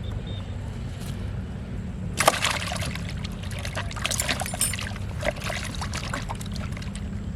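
Pond water splashing and dribbling in a burst of sharp splashes that starts about two seconds in and lasts about three seconds, over a steady low hum.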